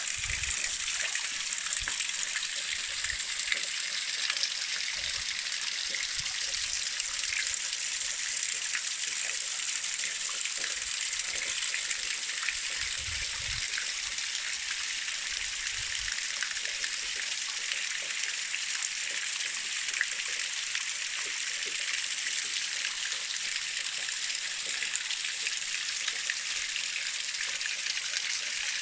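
Waterfall pouring steadily, an even hiss of falling and splashing water, with a few brief low rumbles.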